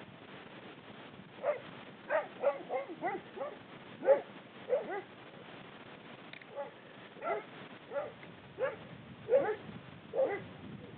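A dog barking repeatedly: about a dozen short barks in two bouts, with a pause of a second or so between them.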